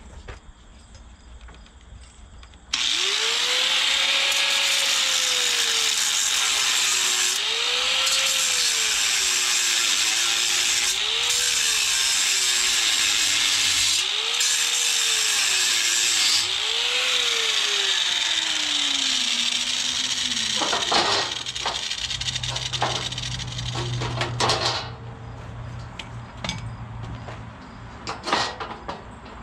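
A power tool cutting through a weld in steel, its motor pitch sagging and recovering several times as it bites, then winding down about twenty seconds in. A few sharp knocks follow.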